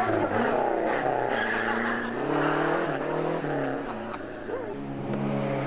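Rally car engine running hard, its pitch stepping down and up several times as it revs.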